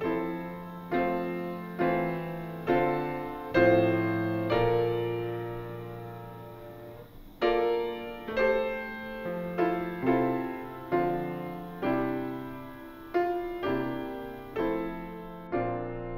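Slow, gentle piano music: soft chords struck about once a second, with one chord left ringing for a few seconds midway before the steady chords resume.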